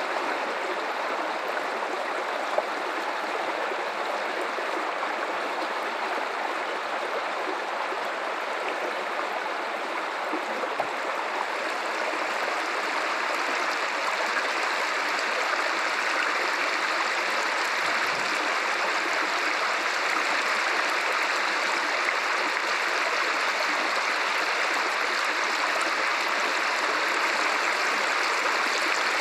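River water running steadily, an even, unbroken rush of flowing water that grows slightly louder about halfway through.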